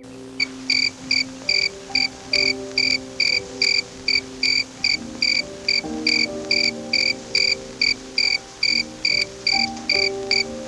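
Regular, evenly spaced chirps like an insect's, about two and a half a second, over soft background music with held notes.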